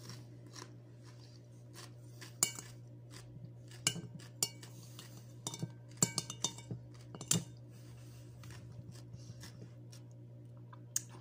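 Metal spoon clinking against a bowl while scooping cucumber salad: a handful of sharp, separate clinks spaced irregularly, the strongest about two and a half and six seconds in, over a steady low hum.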